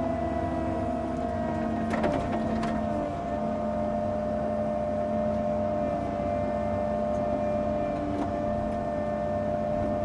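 Excavator engine running steadily while digging, with a steady whine over the engine noise and a couple of sharp knocks about two seconds in.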